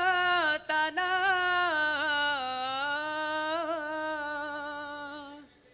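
Solo male voice singing dikir barat, holding one long ornamented note into the microphone that steps down in pitch about two seconds in and fades out near the end.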